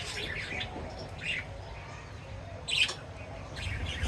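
Pet birds chirping and squawking in short bursts: a cluster at the start, another about a second in and a sharp one near three seconds. A low rumble builds near the end.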